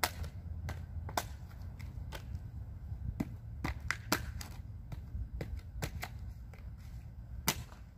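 Irregular light clicks and knocks from hands working close to the microphone in a garden, about two a second, over a low rumble.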